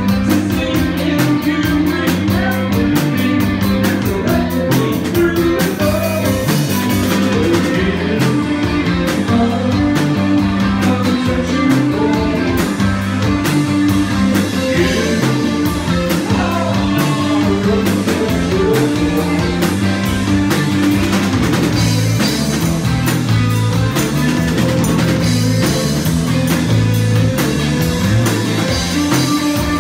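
Live rock band playing: electric guitar and drum kit with a man singing lead vocals into a microphone.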